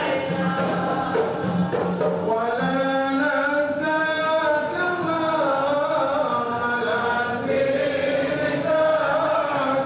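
A group of men chanting an Arabic devotional qasida together, with long held, gliding melodic notes.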